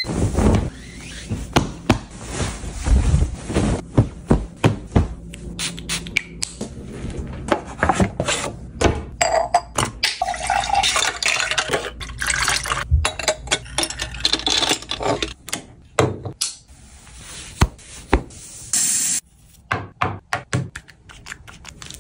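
A run of close-up household handling sounds: many short taps and clicks, and about midway milk being poured over ice into a glass of iced coffee.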